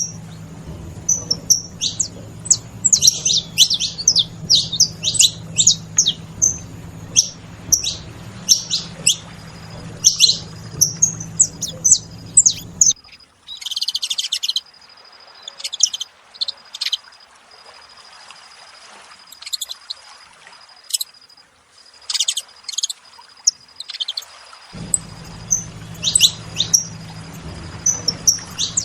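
A group of saffron finches calling, with many short, sharp, high chirps from several birds overlapping in quick bursts.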